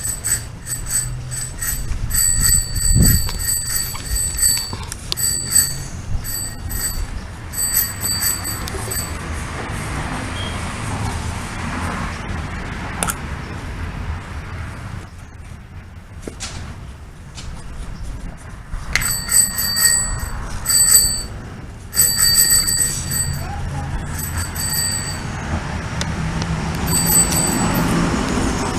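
A small metal bell rung rapidly over and over, in long runs during the first nine seconds and again for most of the last ten, with a quieter pause between them.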